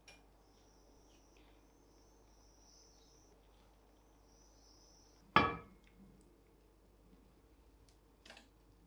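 Faint high-pitched sizzle of egg-filled bread slices frying in a non-stick pan. One sharp knock comes about five seconds in, and a lighter click comes near the end.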